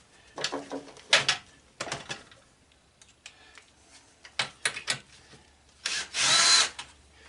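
Scattered knocks and clunks of scrap metal being handled, then a power drill runs for just under a second with a steady whine, about six seconds in.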